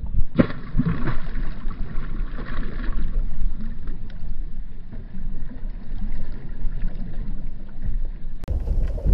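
Wind buffeting the microphone and water slapping a small boat's hull on a choppy sea, with a steady low rumble. A hissing rush of water starts about half a second in and lasts a couple of seconds.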